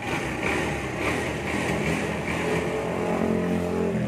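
Kawasaki Barako motorcycle's single-cylinder engine, opened up from idle, running loud with its pitch climbing slowly over the last couple of seconds.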